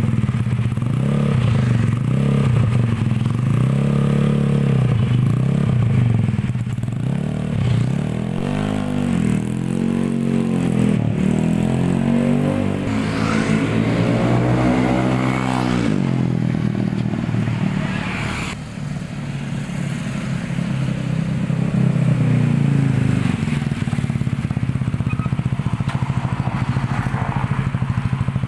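Automatic scooter with an F2Racing Trioval M aftermarket exhaust, revved in a run of short throttle blips, each rising and falling in pitch, then a longer rev that drops back. In the second half it settles to a steady idle with one brief blip.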